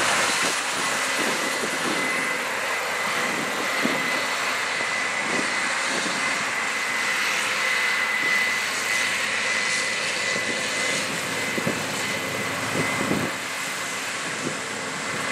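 Combine harvester at work cutting corn: a steady machine drone from its engine and threshing works, with a thin, steady high whine over it.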